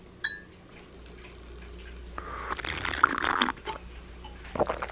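A drink sucked up through a straw from a glass bottle: a slurping rush of liquid lasting about a second midway through. A brief high beep sounds just after the start.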